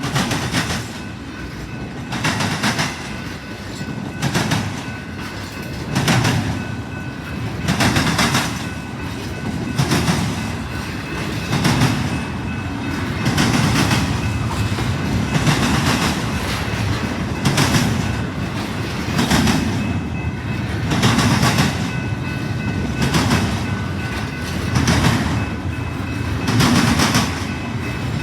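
A train's cars rolling past close by, with a steady rumble and the wheels clacking over rail joints in pairs, about one pair every two seconds.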